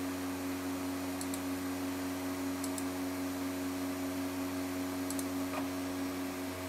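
A vintage Macintosh Quadra 700 running with a steady machine hum and hiss. A mouse button is clicked four times, each click a quick press-and-release pair, as an installer's checkbox and Install button are clicked.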